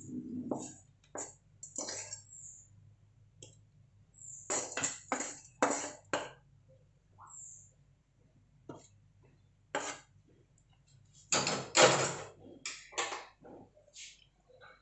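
Aluminium kadai and a spatula knocking and scraping against each other and a ceramic plate as cooked chowmein noodles are tipped and scraped out of the pan; an irregular run of short clinks and scrapes, loudest about twelve seconds in.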